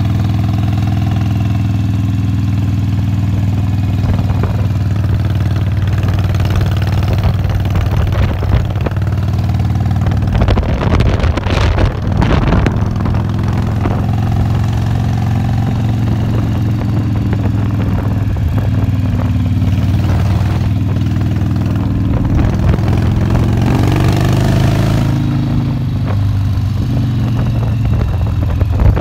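Harley-Davidson FXRP's V-twin engine running steadily as the motorcycle is ridden, with wind buffeting the microphone at times. The engine pitch rises briefly about twenty-four seconds in as the bike accelerates.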